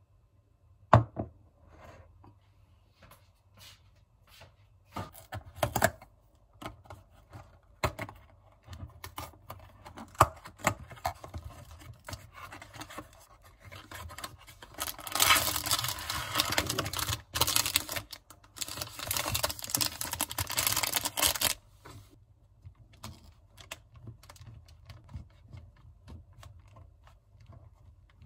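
Tabletop handling sounds: a sharp knock on the table about a second in, scattered taps and rustles, then a cardboard food box being torn open for about six seconds in the middle, which is the loudest part.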